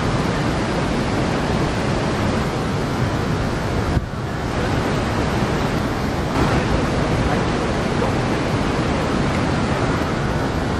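Steady city street ambience: an even, featureless roar with no distinct events, dipping briefly about four seconds in.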